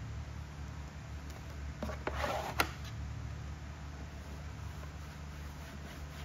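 A steady low hum, with a short rustle about two seconds in that ends in a single sharp click.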